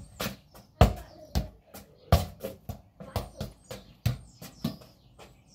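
Football being kicked up and juggled on the feet: a run of dull thuds at uneven intervals, roughly two a second.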